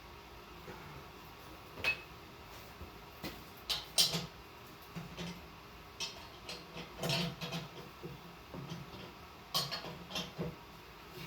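Irregular metallic clicks, clanks and light knocks of metal parts and tools being handled, the loudest about four seconds in.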